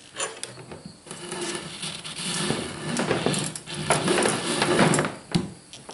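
A cable being pushed and pulled through a drilled hole in a plastic kayak hull: irregular rubbing and scraping with sharp clicks and knocks against the hull, building after the first second.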